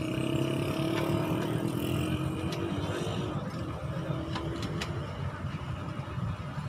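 Diesel locomotive approaching from a distance: a steady low engine rumble, with a droning tone over it that fades out about three and a half seconds in.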